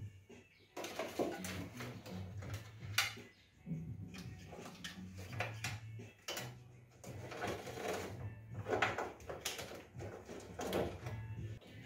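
Background music with a low bass line that steps in pitch, over occasional sharp clicks and rattles of hands handling wiring and trim fittings inside a car tailgate.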